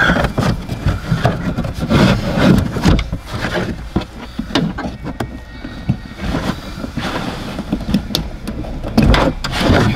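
Felt-covered boot side trim panel being pulled back and handled, with rustling, scraping and irregular clicks and knocks.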